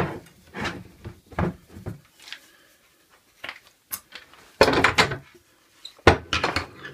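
Steel F-clamps and wooden blocks knocking and clattering on a workbench as the clamps are loosened and lifted away: a string of separate knocks, the loudest a rattling clatter about two-thirds of the way in and another just before the end.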